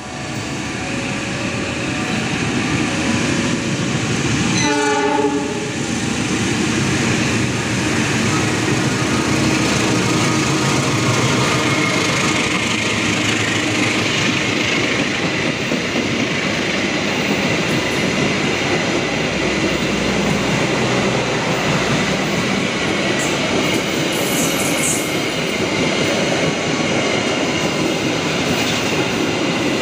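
Diesel locomotive hauling a KAI passenger train sounds its horn once briefly about five seconds in. The long train of coaches then passes through the station at speed, wheels clattering steadily over the rail joints.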